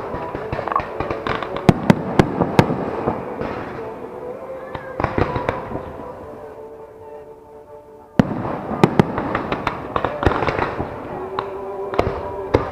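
Aerial fireworks shells bursting, with rapid crackling and bangs. The bursts die away to a lull, then a sudden loud burst comes about eight seconds in, followed by dense crackling again.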